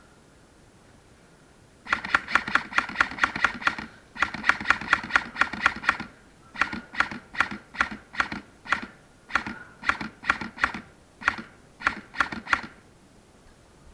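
Airsoft guns firing: two rapid bursts of about two seconds each at roughly six shots a second, then a string of single shots at a slower, uneven pace, ending about thirteen seconds in.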